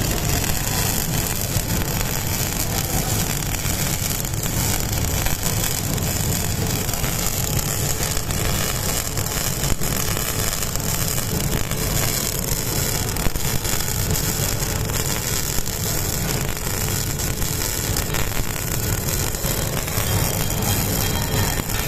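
Orbital welding equipment running: a steady low rumble with an even hiss over it, unchanging throughout.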